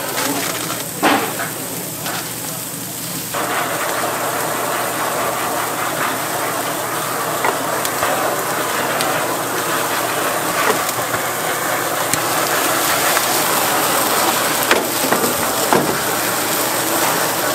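Handheld gas blowtorch flame hissing steadily as it sears skewered meat on a grill, over the sizzle of the meat. A short knock comes about a second in, and the hiss grows louder about three seconds in.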